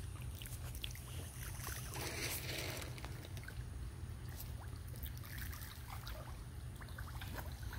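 Fish feeding at the surface of muddy water: many small, irregular splashes, with a busier patch about two seconds in and another around five to six seconds, over a steady low rumble.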